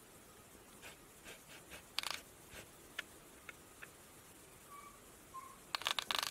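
A cat's paw and claws tapping and scraping against a laptop screen: scattered clicks, with a louder flurry about two seconds in and another near the end.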